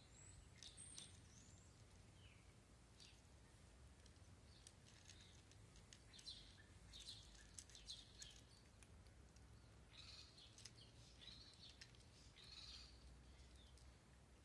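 Near silence: faint bird chirps scattered over a low, steady background rumble.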